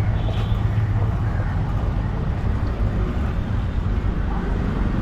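A steady low engine-like rumble under continuous outdoor background noise.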